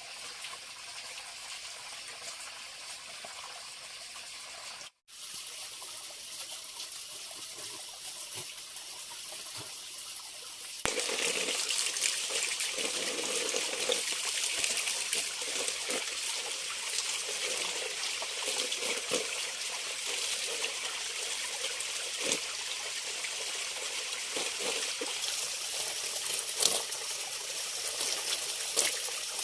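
Water running and trickling steadily. The sound drops out for a moment about five seconds in and comes back noticeably louder from about eleven seconds on.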